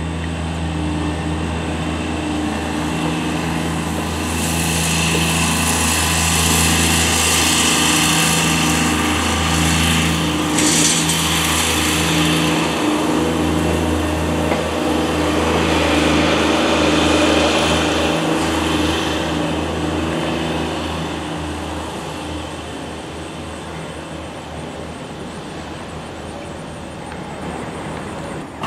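Cessna 172M's four-cylinder Lycoming O-320 engine and propeller running steadily as the plane passes overhead, growing louder a few seconds in and fading away over the last several seconds.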